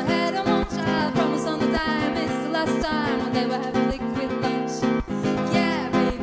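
A woman singing to an acoustic guitar played with steady strokes.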